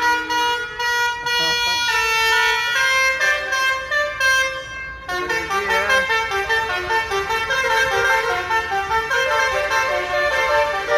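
Bus telolet horn, a multi-tone musical air horn, playing a tune of held notes that step up and down. About five seconds in, the notes come faster and several sound at once.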